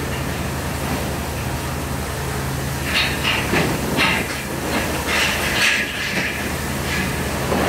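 A steady low machine hum runs throughout. From about three seconds in come a series of short rasping scrapes and rustles as knee pads are strapped on.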